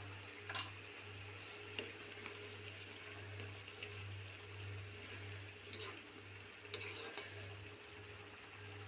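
A spoon stirring red chili powder into a simmering pea-and-paneer curry in a metal pan, with a soft sizzle of the curry and a few clicks and scrapes of the spoon against the pan. A steady low hum runs underneath.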